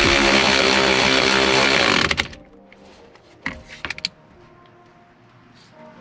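A cordless power tool runs steadily for about two seconds and then stops, a few light clicks and knocks following.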